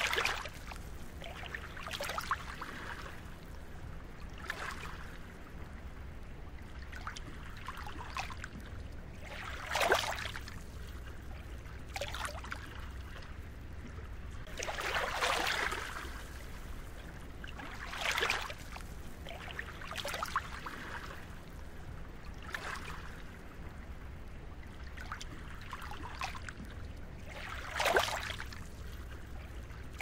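Small, calm sea waves lapping at a sandy shore, a soft splash every two to four seconds over a steady low rumble. The loudest splashes come about ten seconds in and near the end.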